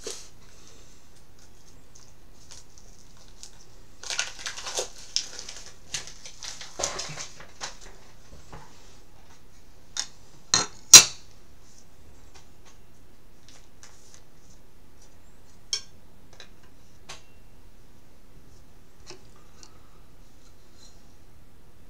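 Trading cards and plastic card holders handled on a desk: a few seconds of rustling, then three sharp clicks in quick succession about ten to eleven seconds in, the last the loudest, followed by a few light taps.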